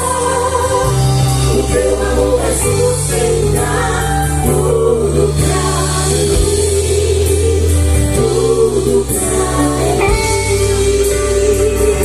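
Live gospel worship music: singers, sounding like a choir, hold wavering sung lines over a band with sustained bass notes that change every second or two.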